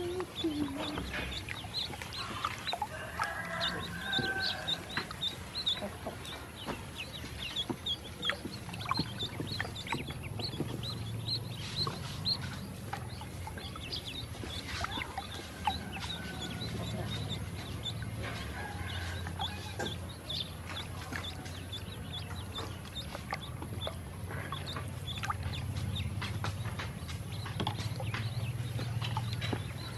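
A brood of domestic ducklings peeping: many short, high cheeps in quick, overlapping succession, with small clicks and splashes from dabbling in shallow water. A low steady rumble runs underneath from about a third of the way in.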